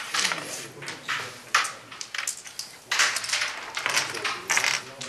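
Carrom men clicking against each other and scraping over the board as they are gathered and set out by hand: a run of short clattering and sliding noises.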